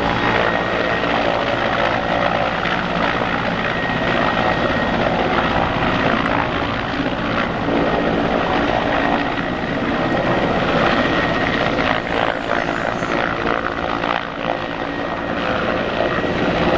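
Mi-14PŁ helicopter's twin turboshaft engines and main rotor running steadily in low, close flight, with a thin high engine whine over the rotor noise.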